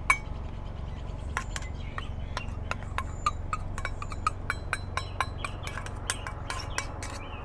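A metal spoon scraping and clinking against a small steel bowl as grated ginger is scraped out, making quick irregular clinks several times a second over a faint low hum.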